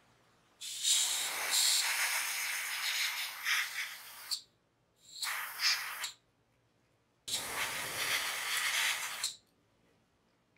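Airbrush spraying paint in three hissing bursts: a long one of about four seconds, a short one of about a second, then another of about two seconds.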